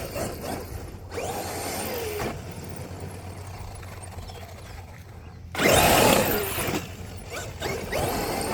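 Traxxas XRT electric RC monster truck throttling up in three bursts, its drivetrain whining and its tyres spinning in dirt. The loudest burst comes a little past halfway.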